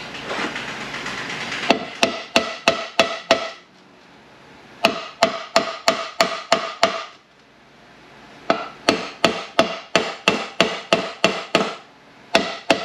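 Mallet blows on a Ford MT82 manual transmission case, in quick runs of about three strikes a second, each hit ringing with a metallic note. He is hammering at a part that is meant to come off with a puller, and it does not come free.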